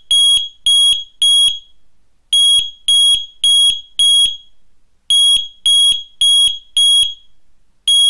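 Mudder combination smoke and carbon monoxide detector sounding its self-test alarm: rounds of four loud, piercing high beeps about half a second apart, with a short pause between rounds. This four-beep pattern shows the unit is working correctly.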